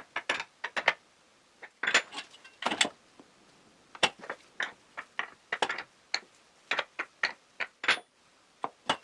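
Irregular clinks and knocks of small metal hardware and tools being handled and fitted: the bolts, nuts and fittings of a hollow-chisel mortising kit going onto a board.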